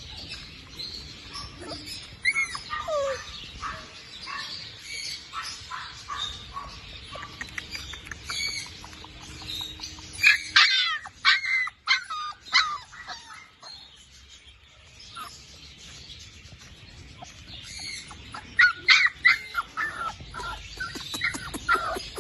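Labrador puppies whining and yelping in high-pitched squeaks, with clusters of quick calls about ten seconds in and again near the end.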